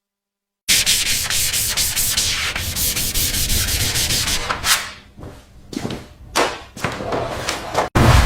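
Sanding: quick back-and-forth rubbing strokes of abrasive on a surface, dense at first, then slower separate strokes from about five seconds in, cutting off abruptly near the end.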